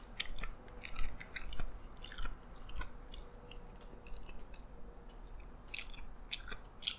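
Close-miked chewing of a mouthful of yee sang salad, with a string of irregular short wet clicks and crackles from the mouth.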